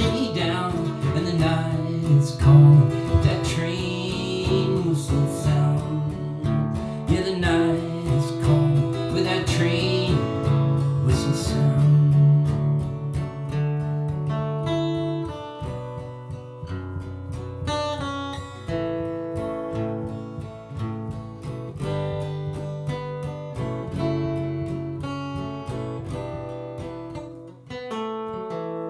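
Acoustic guitar strummed and picked, with a singing voice over it in the first several seconds; after that the guitar plays on alone.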